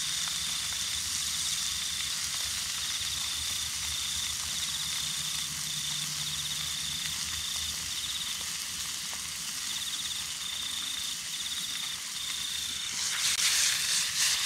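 An insect trilling in short repeated bursts over a steady hiss; a louder burst of crackling noise comes in near the end.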